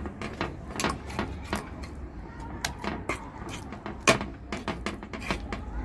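Metal spoon scraping and clinking against a clear baking dish as thick glitter slime is stirred, an irregular string of sharp clicks and knocks, the loudest about four seconds in.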